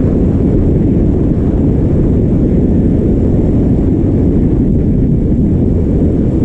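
Wind rushing over the microphone of a moving motorcycle: a steady, loud, low rumble.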